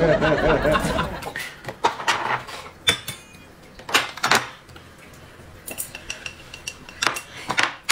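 Wooden chopsticks and tableware clinking and scraping against a metal bowl and a small porcelain dish as food is tipped into the bowl: a few sharp knocks, then lighter clicks with a faint metallic ring.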